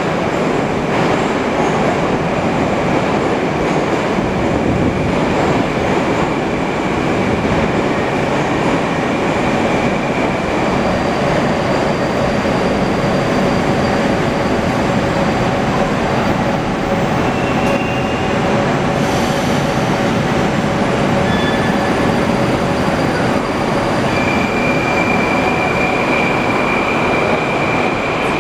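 Moscow Metro 81-765.2 'Moskva' train in the station: a loud, steady rumble with thin, high electric whines from the train's traction equipment. The whine comes back about three-quarters of the way in, as the train moves off along the platform.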